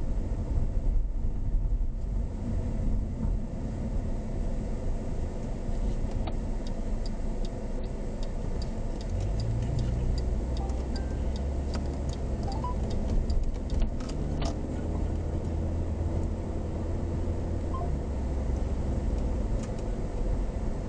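SUV driving on wet pavement, heard from inside the cabin: a steady low engine and tyre rumble that grows stronger partway through. In the middle, an evenly paced ticking runs for several seconds while the car turns, like a turn-signal indicator.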